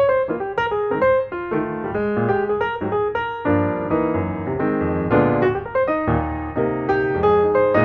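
Background piano music with a light, steady run of notes.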